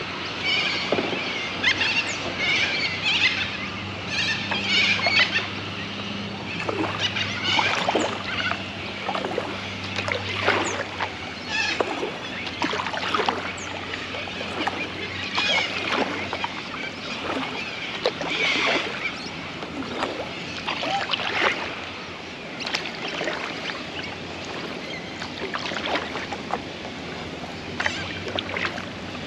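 Kayak paddle strokes dipping and splashing in river water, about one a second.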